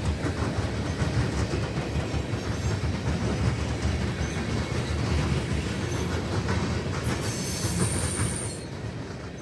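Norfolk Southern mixed freight train rolling past: a steady rumble with clattering wheels over the rails. A brief high-pitched wheel squeal comes in about seven seconds in and stops about a second and a half later.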